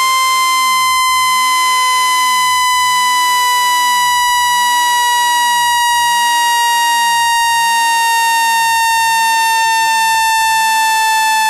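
Synthetic speaker-cleaning tone for ejecting water from a phone speaker: a loud, buzzy, high tone with strong overtones, gliding slowly down in pitch, with a faint tick about every second and a half.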